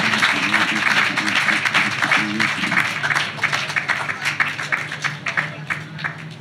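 Audience applauding, with a few voices in the crowd; the clapping thins out and fades away over the last few seconds.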